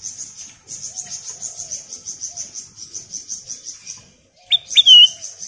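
Ruby-throated bulbul (kutilang emas) calling: a rapid, high-pitched pulsing chatter, then two loud, sharp notes that drop in pitch about four and a half seconds in.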